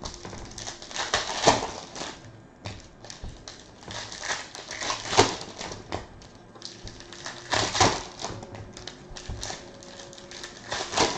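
Foil trading-card packs from Panini Select basketball boxes being handled and torn open, with cards flicked through and set down on a table: a run of irregular crackles and clicks, with louder crinkles about four times.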